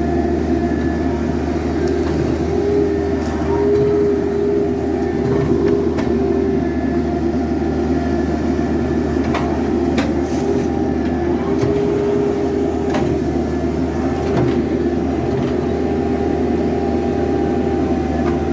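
Excavator running steadily: a low engine drone with a whine held over it, which wavers slightly in pitch now and then, and a few light clicks.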